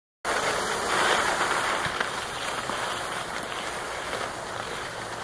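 Skis sliding over groomed snow, a steady rushing hiss that is loudest about a second in and eases a little after, mixed with wind on the microphone.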